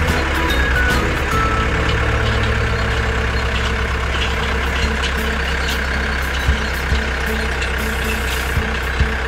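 Tractor engine sound effect running steadily with a low drone, for an animated tractor. About halfway through a faint blip starts repeating about twice a second, and there are a few light clicks near the end.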